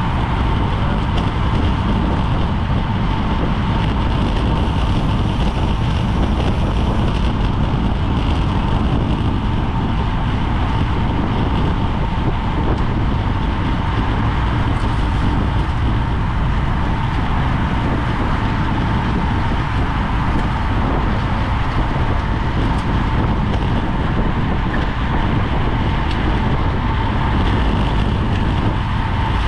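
Steady rush of wind and road noise on a GoPro carried on a racing bicycle at speed, with a thin, steady high tone running through it.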